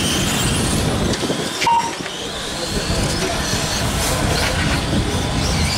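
High electric whine of 1/8-scale brushless on-road RC cars racing, several motors at once, rising and falling in pitch as they accelerate and brake, over a steady low rumble.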